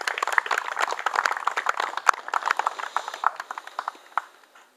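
A small group of people applauding, individual claps distinct, the clapping dying away about four seconds in.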